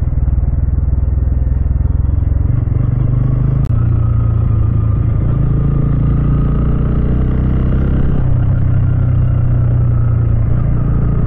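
Bajaj Pulsar N160's single-cylinder engine running steadily on a long downhill, picked up by the onboard mic with road noise. The engine note steps up slightly about two and a half seconds in.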